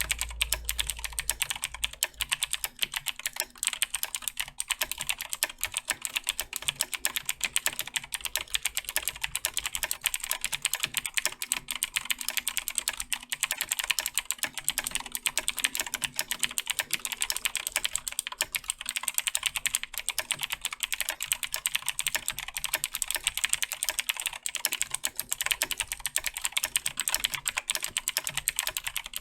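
Continuous typing on a Razer BlackWidow 2014 Tournament Edition mechanical keyboard with clicky Razer Green switches: a dense, steady stream of sharp key clicks.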